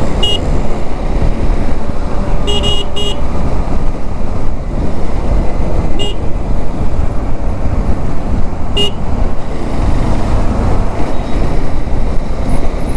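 Steady, loud wind rumble on the camera microphone of a moving motorcycle, picked up with the GoPro's wind reduction turned off. Short vehicle horn beeps cut through it: one at the start, a quick double about two and a half seconds in, then single beeps around six and nine seconds.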